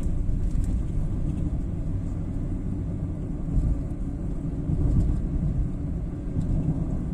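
Car driving at about 70 km/h, heard from inside the cabin: a steady low rumble of road and tyre noise with the engine underneath.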